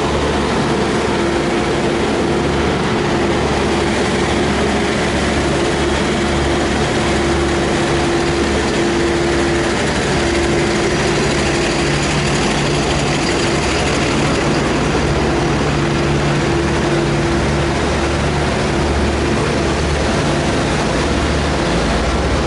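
A heavy engine running steadily at an even speed: a low hum with a steady higher tone over it, unchanged throughout.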